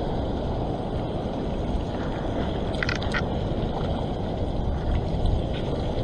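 Steady rush of sea water washing over a wet rock ledge in the surf, with a few faint ticks about halfway.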